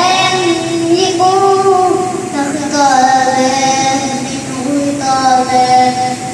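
A young boy reciting Quranic verses in a melodic chant into a microphone, drawing out long held notes in phrases of one to two seconds with short breaths between.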